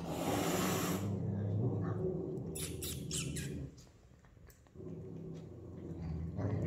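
Savannah cat hissing for about a second, then growling low and drawn out, with a short break before the growl resumes near the end.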